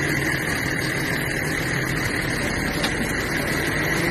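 Heavy truck diesel engine running steadily under load as a loaded rig is hauled through deep mud, with a constant high whine over the engine.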